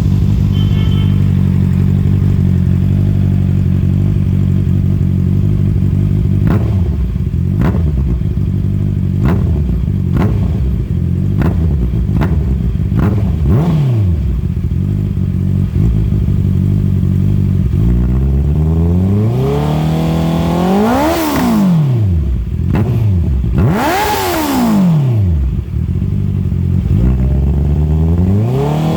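Motorcycle engine running through a handmade SAE 304 stainless-steel RR02 exhaust canister: idling steadily, then a string of quick, sharp throttle blips, then revved up high and let fall back three times near the end.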